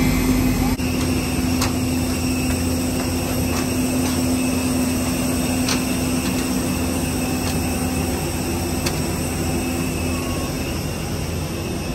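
Steady drone of airport apron machinery beside a parked jet airliner: a constant low hum with a faint higher whine, broken by a few faint taps.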